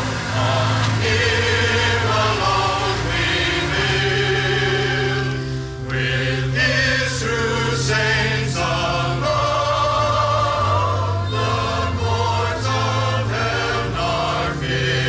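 Background music: a choir singing slow, sustained sacred music, the notes held and changing every second or so over steady low notes.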